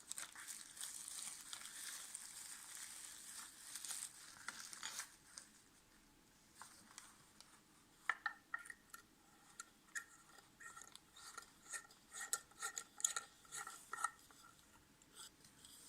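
Small light bulb being fitted into a lava lamp base: a soft rustle of wrapping at first, then, after a quiet spell, a run of faint squeaky scrapes and small clicks as the bulb is turned in its socket.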